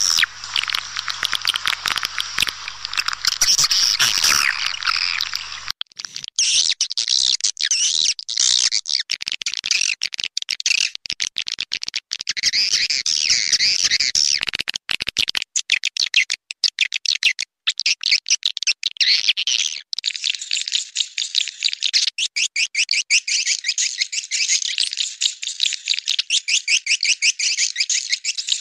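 Swiftlet call recording: many swiftlets twittering in a dense, rapid, high-pitched chatter, the kind of lure sound played to draw swiftlets into a nesting house. A low background hum under the calls cuts out about six seconds in.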